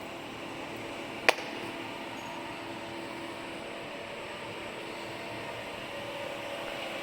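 5-ton welding positioner's table drive running steadily, a low mechanical hum with faint steady tones. A single sharp click about a second in.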